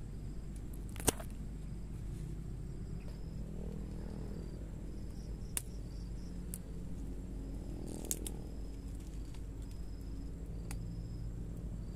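A few sharp snaps of plant stems being broken off by hand, the loudest about a second in, over short high insect chirps and a low steady hum.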